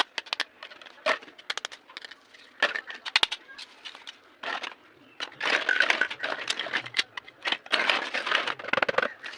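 Toy packaging handled and opened by hand: irregular sharp clicks and snaps, with longer bursts of rustling and crackling in the second half.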